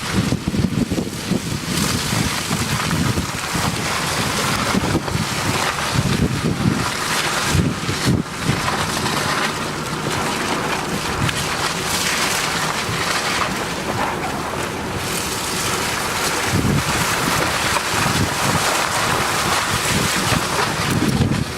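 A Nissan Juke on a test drive: steady road and tyre noise, with gusts of wind buffeting the microphone. No suspension knock stands out, and afterwards the owner reports that nothing knocks or squeaks.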